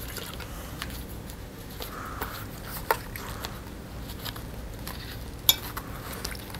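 Stainless steel water bottle and canteen cup clinking and rubbing as they are worked into a fabric pouch. A sharp metallic clink comes about three seconds in, and a louder one about five and a half seconds in.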